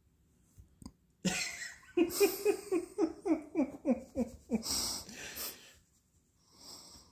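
A person laughing: a sharp breath, then a run of about a dozen short, pitched 'ha' pulses at about four a second, ending in a long breathy exhale.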